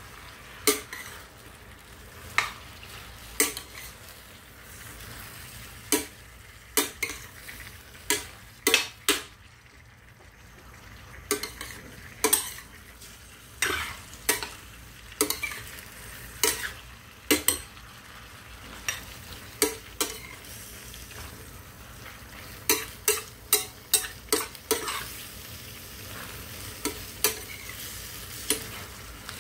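Metal spoon stirring chicken gizzards, liver and onions in a stainless steel pan. It clinks and scrapes against the pan at irregular intervals, more often near the end, over a faint steady sizzle of the frying.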